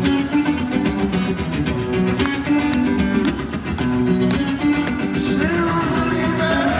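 Steel-string acoustic guitar played live through a concert sound system: a quick, rhythmic picked-and-strummed riff of repeating notes. Near the end a long sung note slides up and holds over it.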